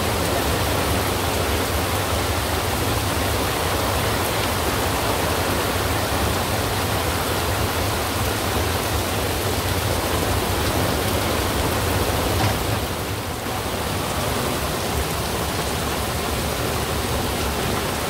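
Heavy tropical downpour pouring onto open swamp water, a steady, even hiss of rain.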